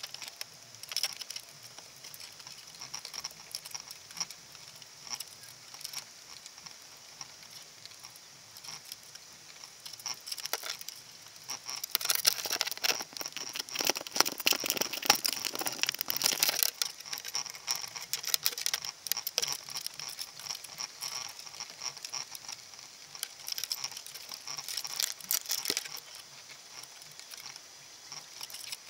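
Crabs clicking and scraping their legs and shells against the wire crab pot and the camera's housing, heard underwater. It is an irregular patter of small clicks, with a louder, denser flurry of scraping about twelve seconds in that lasts some four seconds as a crab presses against the camera.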